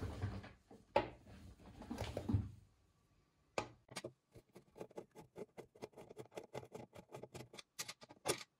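Screwdriver unscrewing the oil drain screw in the bottom of an industrial sewing machine's oil pan. Handling rustle and a couple of knocks come first, then, about three and a half seconds in, a run of quick light ticks, about four to five a second.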